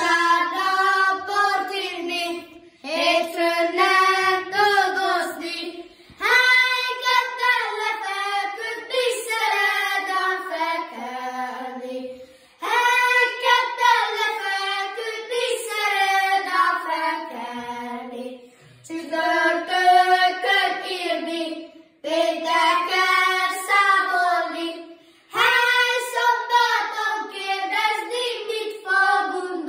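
A small group of children singing a Hungarian folk song of the Gömör charcoal burners, unaccompanied, in sung phrases a few seconds long with brief pauses for breath between them.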